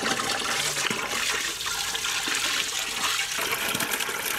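Water from a hose pouring steadily into a large aluminium pot, a continuous splashing rush, as basmati rice is washed in it.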